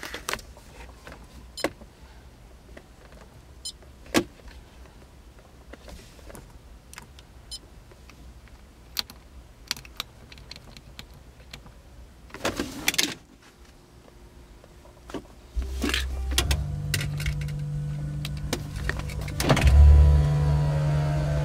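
Scattered small clicks and taps as the head unit's buttons are pressed, then about fifteen seconds in, heavy bass playback starts through a 12-inch Kicker L7 subwoofer in the car cabin and gets louder near the end as the volume is turned up.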